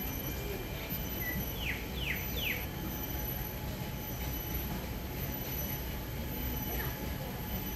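Outdoor garden ambience: a steady low rumble with a thin steady high-pitched whine over it. About two seconds in, a bird gives three quick whistled notes, each sweeping downward.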